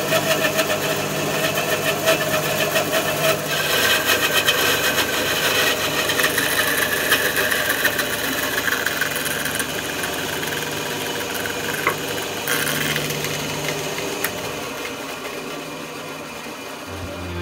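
Bandsaw running with its blade cutting lengthwise through a small ash log with the bark on: a steady motor hum under the rasp of the blade in the wood, the cutting noise strongest through the middle of the cut.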